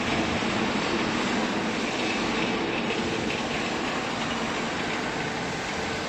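Steady mechanical running noise of a hydraulic baling press, its motor and pump working at an even level.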